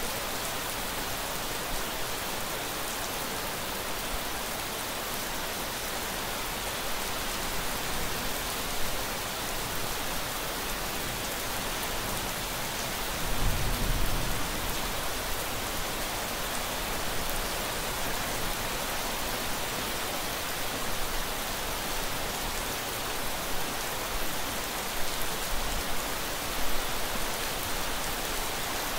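Steady rain falling, an even hiss of many drops, with a brief low thump about halfway through.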